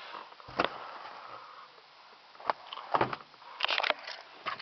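A few sharp knocks and clicks of a car's plastic interior fittings being handled: one thump about half a second in, two more knocks a couple of seconds later, and a quick rattle of clicks near the end.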